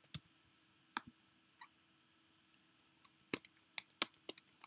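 Computer keyboard being typed on, faint and sparse: a few keystrokes in the first second and a half, a pause of about a second and a half, then a quicker run of keystrokes near the end.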